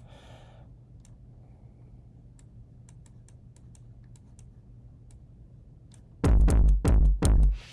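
Faint clicking at the computer over a low steady hum, then about six seconds in a loud, heavily saturated electronic beat plays back: a quick run of four or five deep bass-heavy hits with a buzzy, distorted top.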